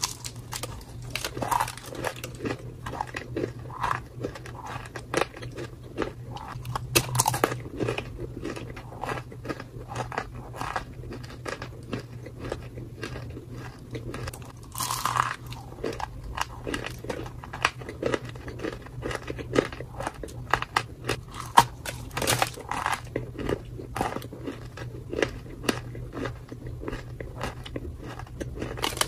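Dry, flaky grey-green clay being bitten and chewed close up, giving a run of sharp, irregular crunches. A faint steady low hum runs underneath.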